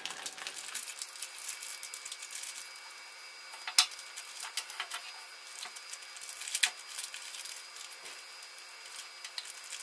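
Handling noise from small plastic and metal spinning-top parts and their plastic bag: soft rustling and light clicks, with two sharper clicks a few seconds apart, over a faint steady hum.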